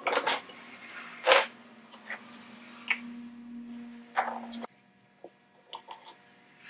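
Metal hand tools and a small perforated metal lamp ring being handled and set down on a wooden workbench: a string of sharp clicks and clinks, the loudest about a second in. A faint steady hum under them cuts off suddenly about four and a half seconds in, after which there are only a few light ticks.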